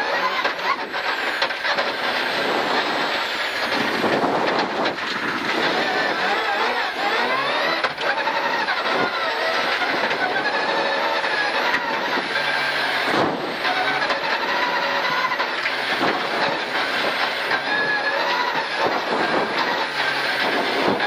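Group H rally car engine running hard on a gravel stage, heard from inside the cabin, its pitch rising and falling with the throttle, over steady tyre and gravel noise with a few sharp knocks.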